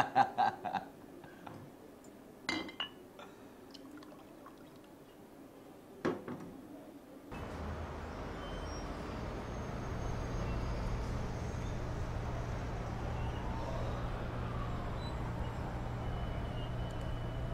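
A few sharp glass clinks, like bottles or glasses knocked on a table. About seven seconds in, a steady low hum takes over, and later a faint siren wails, rising and falling twice.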